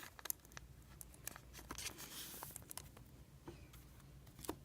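Faint handling of trading cards: light clicks and taps, with a soft brushing rustle about two seconds in.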